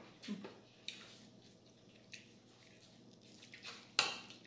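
Eating utensils clinking against dishes during a meal: a handful of separate light clicks and taps, the sharpest near the end.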